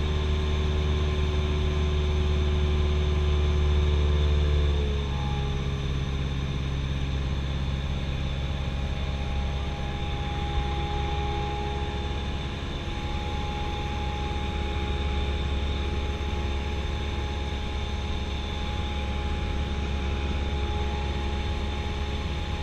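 Cessna 172SP's four-cylinder Lycoming IO-360 engine and propeller droning steadily, heard inside the cabin. About five seconds in, the pitch slides down and the sound gets a little quieter as the engine speed is reduced, then it holds steady.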